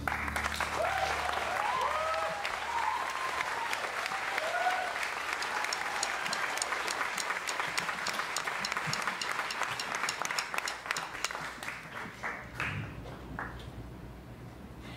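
Audience applauding, with a few whoops in the first few seconds. The clapping thins out to scattered claps near the end.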